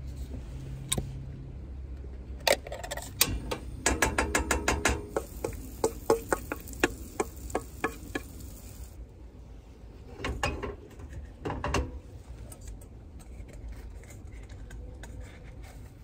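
Metal spoon clinking and scraping against a stainless-steel mixing bowl, a quick run of taps over several seconds as pancake batter is scraped out into the skillet. A couple of duller knocks follow a few seconds later.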